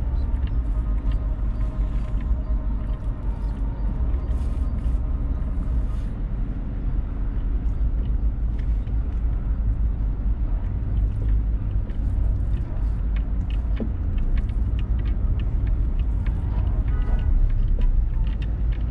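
Car driving through city streets: a steady low road-and-engine rumble, with scattered faint clicks and ticks.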